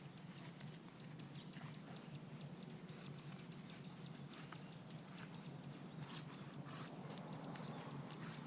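Scissors cutting a rubber bicycle inner tube in half: faint, irregular snips and clicks, several a second, with a few short rasping cuts among them.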